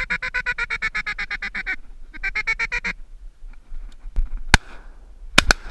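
A rapid, evenly paced run of duck-call notes, about ten a second, then a second shorter run. From about four seconds in comes a string of loud shotgun shots at ducks flying over: four reports, the last two close together.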